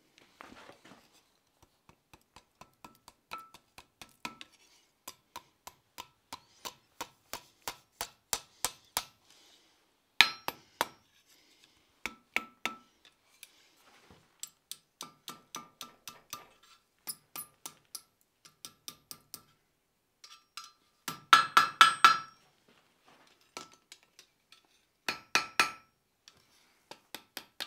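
Blacksmith's hammer striking hot steel on an anvil. It goes in runs of quick light blows, a few a second, each with a short ringing note from the anvil. The loudest flurry of blows comes about two-thirds through, as the hook end is bent over.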